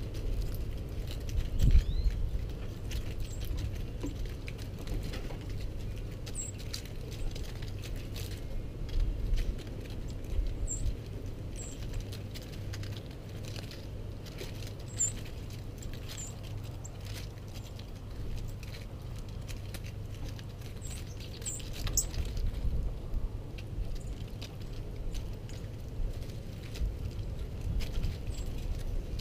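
Brief, high chirps of small birds every few seconds, over light irregular tapping and ticking and a constant low rumble.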